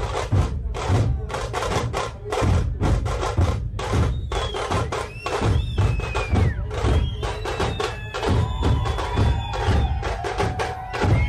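Loud, fast drumming with a heavy low beat, with high gliding tones over it from about four seconds in.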